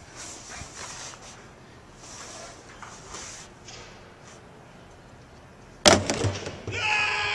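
A thrown ball lands with one sharp knock and a couple of quick rattles about six seconds in. A person's long, high shout follows straight after.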